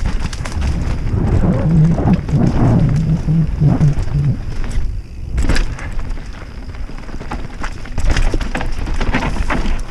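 Mountain bike riding fast down a dirt trail: tyres crunching over loose dirt and leaf litter, the bike rattling and knocking over bumps, with heavy wind rumble on the helmet camera. The noise drops off briefly about five seconds in, then comes back with a hard knock.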